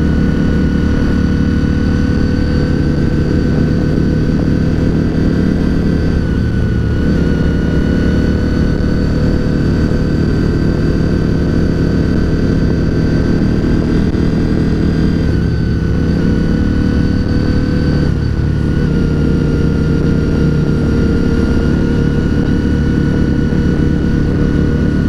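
Honda RC51 V-twin sport bike engine running at a steady cruise under the rider, heard from on the bike with wind rush, plus a steady high whine. The engine note eases and picks up slightly about six to seven seconds in, and again around sixteen and eighteen seconds.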